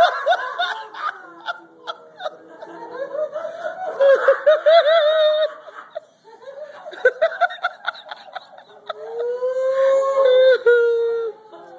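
A person laughing in several bouts, with a long drawn-out vocal sound near the end.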